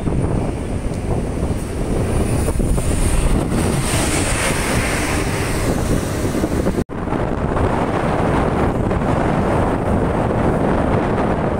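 Road traffic with buses and trucks driving past, wind buffeting the microphone. The sound drops out for an instant about seven seconds in.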